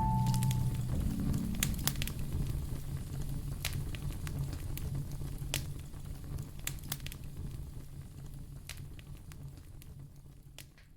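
Fire crackling: sparse sharp pops and snaps over a low steady rumble, the whole sound fading out gradually toward the end.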